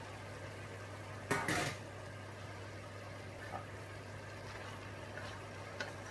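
Pork liver and bell pepper stir fry sizzling softly in a frying pan over a steady low hum. There is a short clatter of utensil on pan about a second in, then a few light knocks as a wooden spatula stirs the food.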